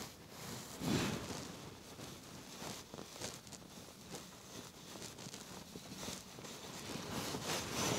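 Faint handling noises as hands turn and grip a greased Headshok telescope tube, with clothing rustle throughout and one louder knock about a second in.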